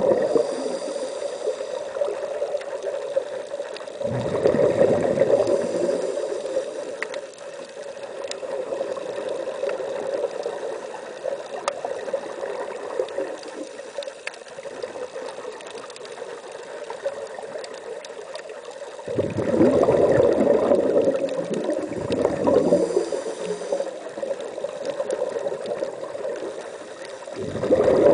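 Scuba divers' regulator exhaust bubbles underwater: bursts of bubbling as a diver exhales, about four seconds in, around twenty seconds in and again near the end, with quieter water noise between.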